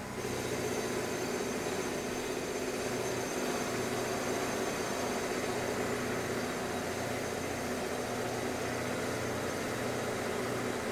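Construction machinery engine running steadily, a continuous mechanical hum with a few steady tones.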